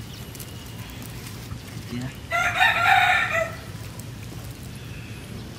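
A rooster crowing once, a single call of about a second, a little past the middle.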